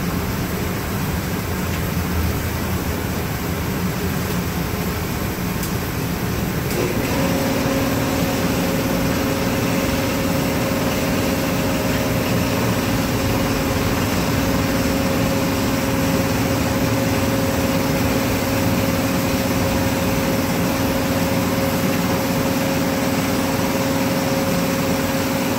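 Steady roar of a glass shop's gas-fired furnace and blowers. About seven seconds in, a steady machine hum joins and the sound grows a little louder.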